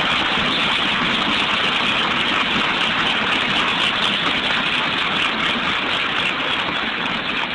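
Audience applauding, a steady wash of clapping that holds throughout and begins to thin near the end.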